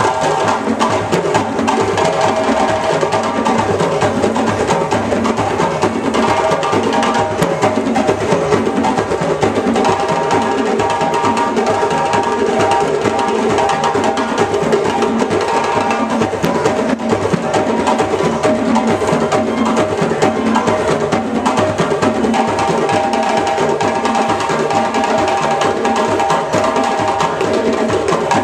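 A West African hand-drum ensemble of djembes and larger standing drums plays a continuous, dense rhythm without a break.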